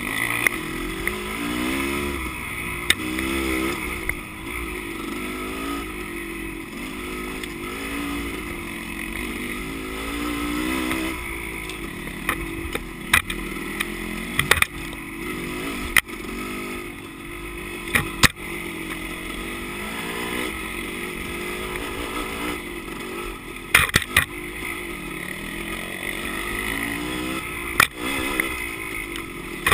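Dirt bike engine heard from on board while riding a rough trail, its revs rising and falling constantly with throttle and gear changes. Sharp knocks and clatter break in every few seconds.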